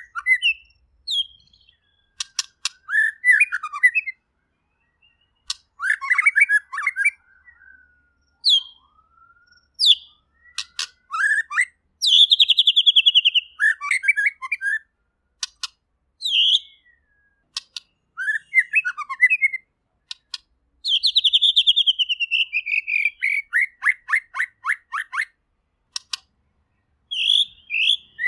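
White-rumped shama (murai batu) singing a varied song of short whistled phrases mixed with sharp clicks. Twice, about twelve and twenty-one seconds in, it runs into a long, rapid series of notes falling in pitch.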